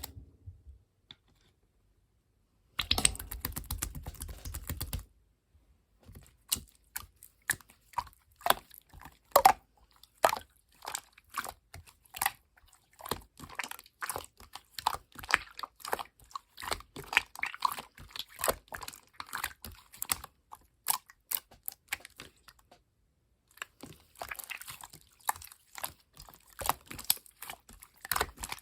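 Clear yellow slime being pressed and stretched by hand, giving irregular sticky clicks and pops. About three seconds in there is a two-second stretch of dense crackling, and the clicking stops briefly near the end before starting again.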